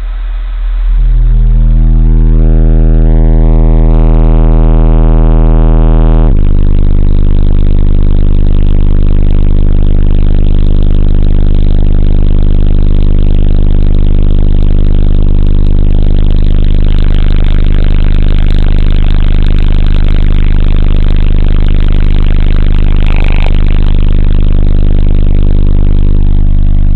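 Custom-reconed 10-inch Diamond Audio D6 subwoofer in a ported box tuned to 28 Hz, playing very loud, sustained deep bass that changes pitch once about six seconds in and then holds steady.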